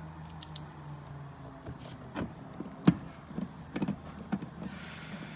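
Clicks and knocks of plastic door-trim and handle parts being handled and fitted back into a car door, the sharpest knock about three seconds in, with a brief scraping near the end, over a steady low hum.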